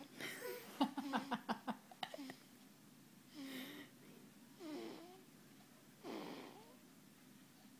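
A 17-day-old baby snoring in her sleep: a run of quick, rattly snorts in the first two seconds, then three wheezy snores about every second and a half.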